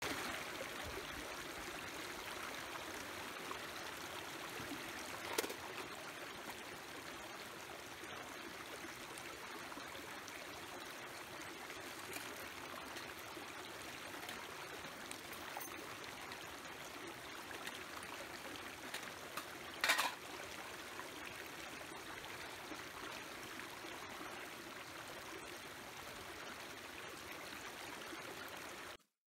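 Shallow mountain stream running over rocks, a steady rush of water. Two brief knocks sound over it, the louder about two-thirds of the way through.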